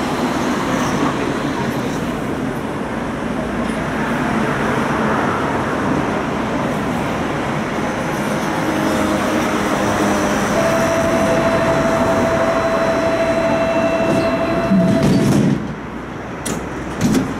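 Electric tram rumbling on its rails and drawing up at a stop. A steady high whine sounds for a few seconds while it stands, then comes a loud clunk, and the running noise drops away about fifteen seconds in.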